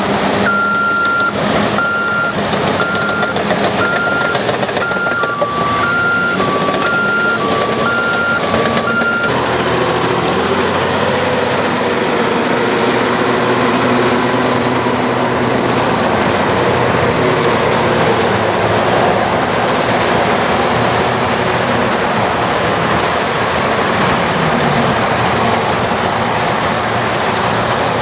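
Heavy construction machinery working: diesel engines running steadily while a backup alarm beeps about once a second, joined midway by a second, lower-pitched backup alarm; both alarms stop about nine seconds in and the engines carry on, one changing pitch near the end.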